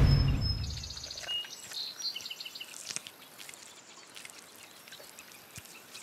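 Timpani-led score music dying away in the first second, leaving faint outdoor ambience with a few small, high bird chirps and ticks.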